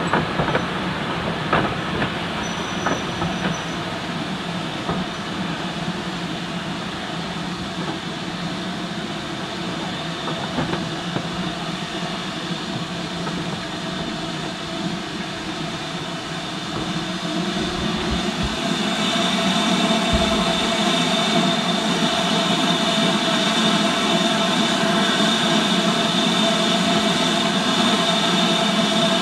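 A rake of steam-hauled passenger coaches rolls slowly past, its wheels clicking over the rail joints in the first few seconds. About two-thirds of the way in, a louder steady hiss of escaping steam builds up from the locomotive, BR Standard 7MT 70000 Britannia.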